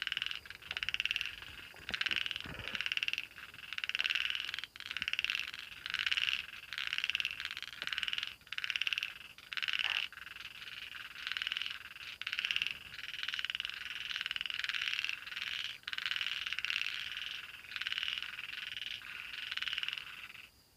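Frogs calling at night, a chorus of repeated croaking calls about once a second that cuts off suddenly near the end.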